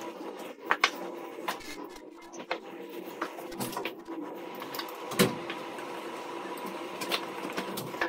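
Small metal clicks and clinks of screws, spacers and nuts being handled and fitted while aluminium bracket plates are assembled by hand, with a sharper knock about five seconds in. A faint steady hum runs underneath.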